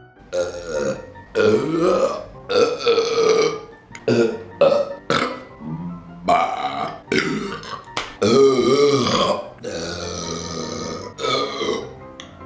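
A man's burps, about a dozen in quick succession, some short and some long and drawn out, the longest about eight seconds in. They come from gas built up after chugging carbonated Diet Coke.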